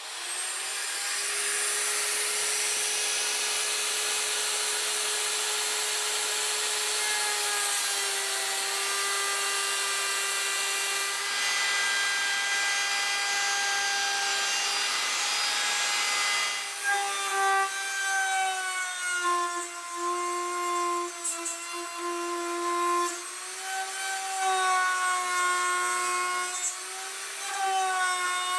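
Milwaukee plunge router running at full speed with a steady high whine, milling the cast-iron and steel sole of a block plane. About halfway through, the whine dips in pitch and wavers unevenly as the bit bites into the metal.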